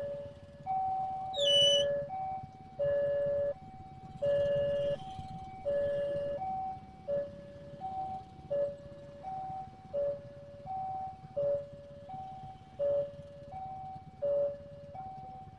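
Railway level-crossing warning alarm ringing its two-tone electronic ding-dong, high then low, repeating about once every second and a half while the barriers are down. Beneath it is a low rumble of waiting traffic, and a brief sharp high-pitched squeal comes about a second and a half in.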